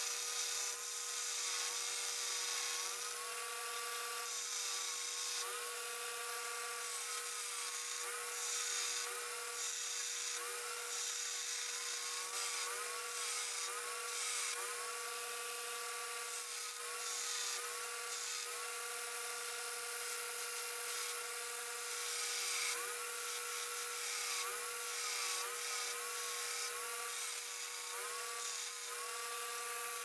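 Belt grinder running steadily while a forged steel knife blank is ground against the belt in repeated passes. A gritty grinding hiss comes and goes with each pass, and the motor's whine dips in pitch briefly each time the steel bears on the belt.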